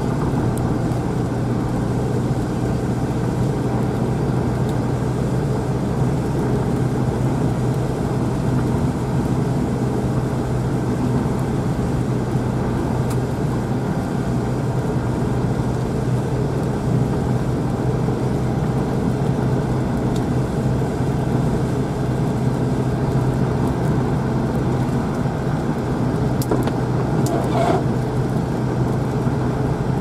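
A moving car's steady road and engine noise, heard from inside the cabin: a continuous low drone with tyre and wind rush.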